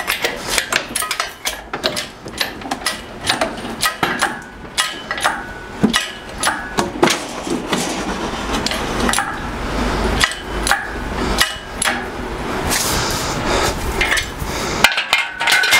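Harbor Freight 1-ton hydraulic shop crane being pumped by its handle to hoist a roughly 500-pound air compressor: repeated metallic clanks and clinks from the pump linkage and the lifting chains, about two or three a second. In the second half the clanking merges into a steadier rattle and rumble as the load comes up.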